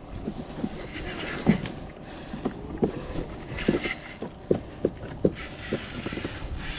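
Irregular light clicks and knocks from a fishing rod and spinning reel being handled on a plastic kayak while a line tangled with the bait is cleared.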